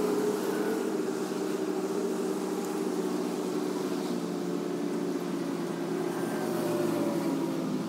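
An engine running steadily: an even hum with several held tones.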